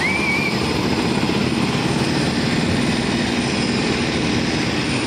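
Steady jet airliner noise, with a short high chirp right at the start.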